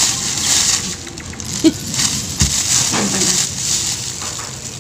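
Knife scraping and cutting through the rough skin of a camansi (breadnut) fruit, in a run of short scrapes with a few soft knocks.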